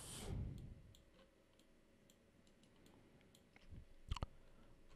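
Faint computer mouse clicks over quiet room tone, with a louder double click about four seconds in.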